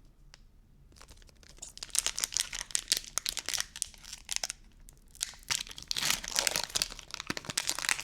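Foil wrapper of a Pokémon trading card booster pack being torn open and crinkled by hand, in two bouts of crackling, about two seconds in and again near the end.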